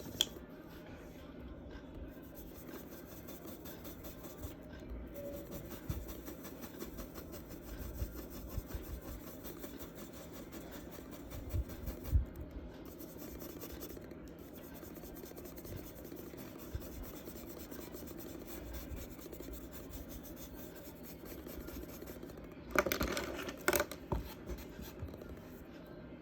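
Charcoal scratching and rubbing on paper in steady strokes, with a louder run of strokes near the end.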